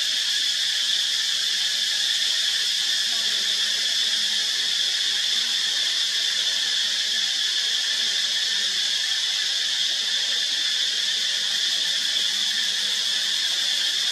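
Insect chorus in forest: a steady, unbroken high-pitched drone.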